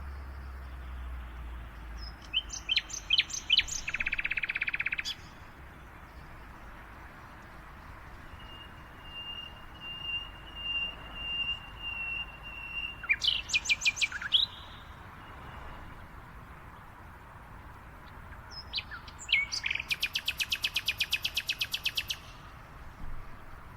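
Several songbirds singing in separate phrases: quick chirps and rapid trills of repeated notes, one long steady whistled note, and a fast buzzy trill near the end, over a steady hiss of outdoor background.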